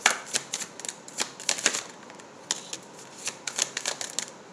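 Tarot deck being overhand shuffled: a run of crisp, irregular card clicks and slaps, a few a second, with a brief lull about two seconds in.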